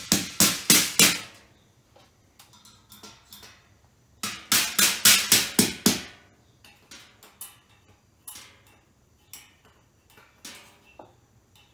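A hammer striking repeatedly, in quick runs of about five or six ringing blows, with fainter single taps in between.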